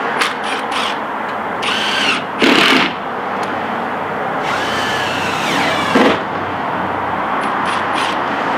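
Power drill driving screws through a window's nailing flange and the rigid foam buck into the framing. It runs in two short spurts about two seconds in, then in a longer run around five seconds in whose pitch sags and recovers as the screw bites.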